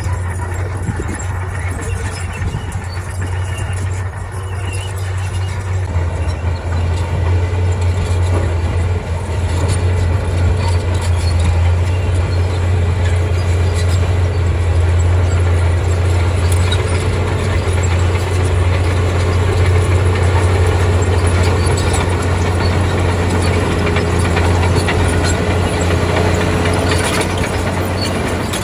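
Komatsu crawler bulldozer's diesel engine running with a steady low drone that grows louder about six seconds in, with faint scattered clicks over it.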